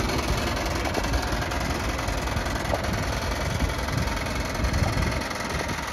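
Scania P124 400 truck's DSC12 straight-six diesel engine idling steadily.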